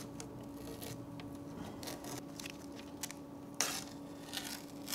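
Black electrical tape being peeled off a racing seat: faint rustling with a few short sharp ticks, the clearest about three and a half seconds in, over a steady low hum.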